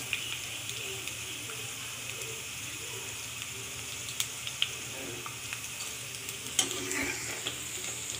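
Okra slices sizzling as they deep-fry in hot oil in a kadai while a slotted metal ladle scoops them out. A steady sizzle broken by a few sharp ticks.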